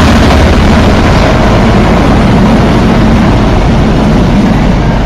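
A Freightliner diesel freight locomotive passes close by with its engine running, then empty container flat wagons follow in a loud, steady rumble on the rails.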